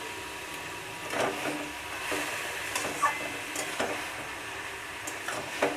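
Metal spatula stirring bottle gourd and fried fish heads in a metal kadai, with a few short scrapes and knocks against the pan over a low, steady sizzle.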